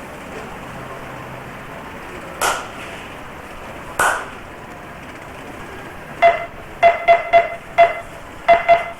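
Hard, sharp strikes: two single knocks a second and a half apart, then a quick irregular run of seven short clacks that each ring briefly with a clear pitch.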